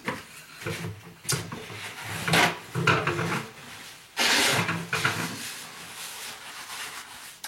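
Irregular handling noises: knocks, rubbing and rustling as things are moved about, with a longer scrape or rustle about four seconds in.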